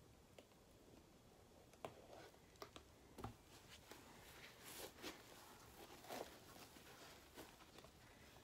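Near silence with a few faint clicks and soft rustles from gloved hands handling and tilting a painted canvas.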